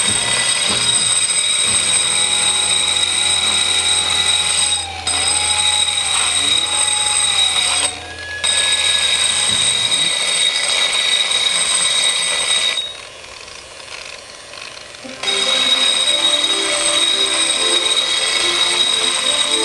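Variable-speed angle grinder with a diamond cup wheel grinding down the edge of set concrete: a steady high whine over a rough grinding hiss. It dips briefly twice in the first half and falls quieter for a couple of seconds past the middle before picking back up.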